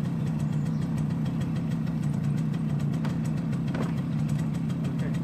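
Small youth ATV engine idling steadily.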